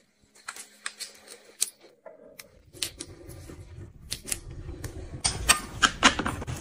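Plastic-wrapped packets crinkling and small toiletries clicking against each other as they are handled and packed into a mesh storage bag. The sharp crackles come in a loose string and grow busier in the second half, over a low rustle of the bag.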